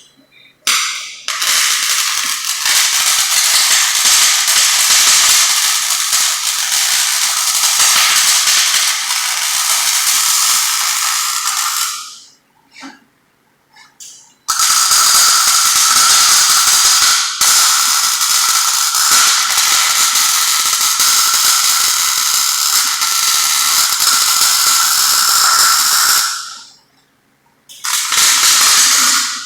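Electric arc welding: three runs of steady crackling and sizzling at the arc, the first about ten seconds long, the second about twelve, and a short one starting near the end, with a steady high tone through the crackle and brief pauses between the runs.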